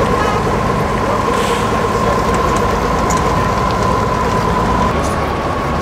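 Kirovets K-700A tractor's YaMZ V8 diesel engine running steadily at low speed as the tractor drives slowly forward, with a steady high whine over the deep engine note.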